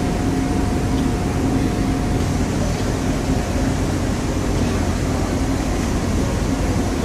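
Boat under way: the engine drones steadily beneath a loud, even rush of water and wind. A faint steady whine fades out about two seconds in.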